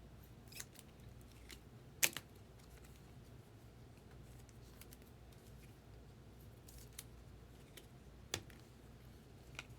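Trading cards being slid into plastic sleeves and cases: faint plastic handling with a few sharp clicks and taps, the loudest about two seconds in.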